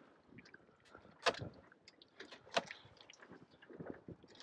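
Fillet knife working along a big snapper's rib cage and through its pin bones: faint scrapes and small clicks, with two sharper knocks about a second apart.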